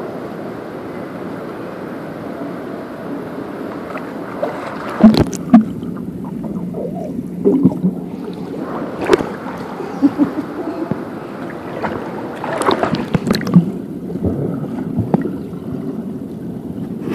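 Swimming pool heard through an underwater microphone: a steady, muffled rush broken by bursts of bubbling and splashing as a child blows bubbles and kicks past. The loudest bursts come twice about five seconds in, with a cluster around thirteen seconds.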